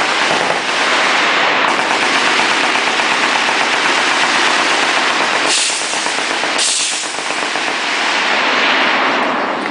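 Heavy automatic gunfire, many shots running together into one continuous roar that eases off near the end.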